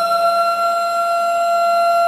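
Outdoor warning siren sounding one steady, held wail at full pitch.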